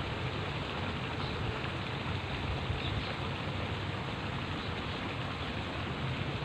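Steady rushing outdoor noise of wind and flowing river water, even throughout, with a faint low hum underneath.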